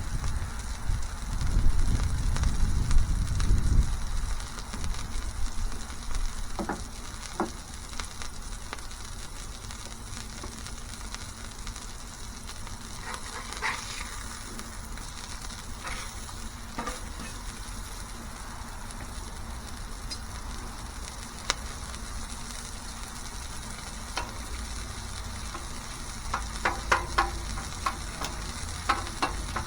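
Smashburger patties sizzling steadily on a flat-top griddle, with scattered sharp clicks and taps and a quick cluster of them near the end. A low rumble sits under the sizzle for the first few seconds.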